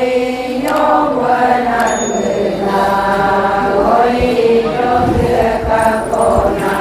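Voices chanting a melody in long held notes that slide up and down between syllables.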